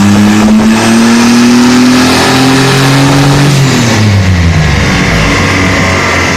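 Loud twin-turbo V6 hot rod engine pulling under load on a chassis dynamometer. Its pitch climbs slowly, then falls sharply as the revs drop about three and a half seconds in, settling to a lower steady note.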